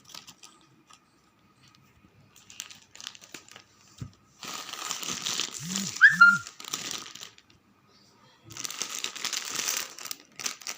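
Parcel packaging being crinkled and torn open by hand: faint rustles at first, then two spells of loud crinkling, the first about four seconds in and the second from about eight and a half seconds on.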